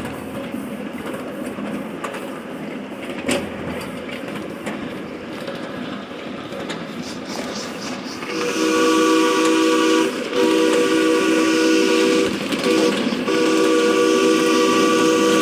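A steam locomotive's chime whistle blows a long multi-note chord that starts about eight seconds in, with two short breaks, over the running noise of the train.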